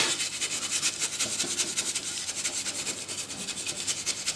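Sawdust being packed firmly into a skinned perch: a fast, steady run of dry, scratchy rustling strokes.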